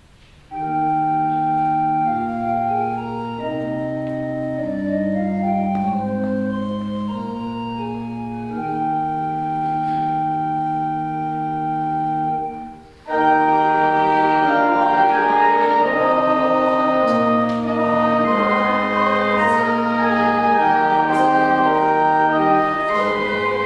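Church organ playing a hymn in slow, held chords, starting about half a second in. It breaks off for a moment near the middle and resumes fuller and louder.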